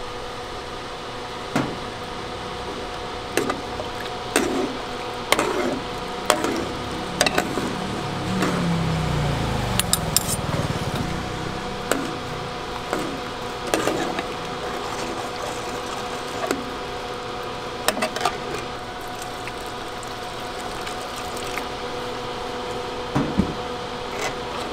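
Metal spatulas knocking and clinking against a large metal pan while stirring tteokbokki in broth, a dozen or so sharp knocks spread unevenly, over a steady electrical hum. A low rumble swells and fades in the middle.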